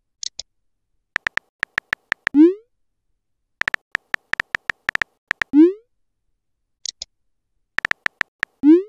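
Phone-app texting sound effects: three quick runs of keyboard tap clicks as messages are typed, each ending in a loud rising bloop as the message is sent. A brief high chirp sounds just after the start and again about seven seconds in.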